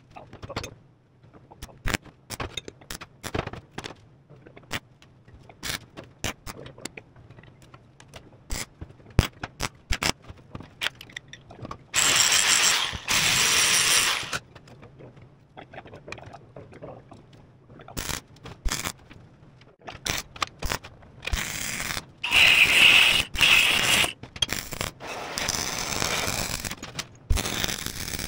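Steel parts knocking and clanking as they are handled on a steel workbench. About twelve seconds in, an angle grinder runs in two bursts against steel, and from about twenty seconds on a welding arc crackles in short bursts.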